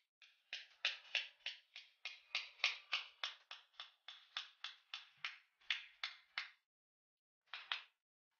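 Light, sharp hammer taps on the Chicago Pneumatic CP854 air angle grinder's metal head, about three a second, then a pause and two more taps near the end.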